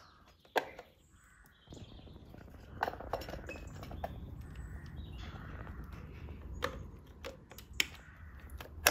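Sharp plastic clicks as ignition coil packs and their wiring connectors are pressed into place on a BMW M52 straight-six, several single clicks a second or more apart. A low rumble of handling noise runs underneath from about two seconds in.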